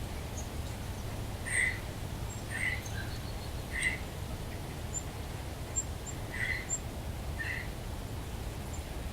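Birds calling outdoors: five short calls spaced a second or more apart, with a few faint high chips, over a steady low rumble.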